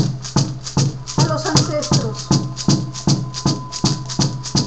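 Frame drum beaten in a steady, even rhythm of about two and a half strokes a second, each stroke a low thud with a rattling hiss on top. A faint held tone runs underneath from about a second in.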